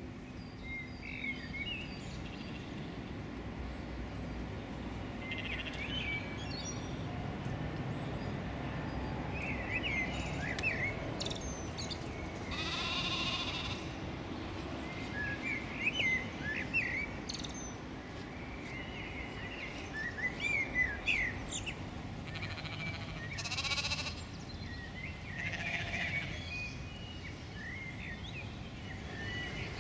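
Mouflon bleating a couple of times, each call a pitched bleat about a second long, while small songbirds chirp throughout over a low steady background rumble.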